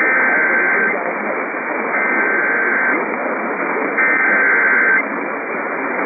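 Three one-second bursts of Emergency Alert System SAME header data tones, evenly spaced about a second apart, over steady AM radio static. They are the coded header that opens a new severe thunderstorm warning.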